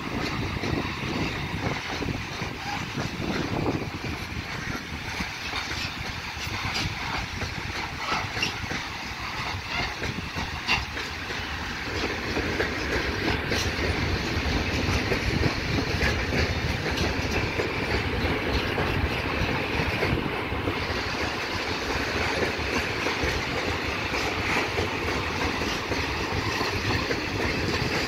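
A long freight train of high-sided open wagons rolling past: a steady rumble of steel wheels on the rails with a clatter of wheels over rail joints, growing a little louder about twelve seconds in.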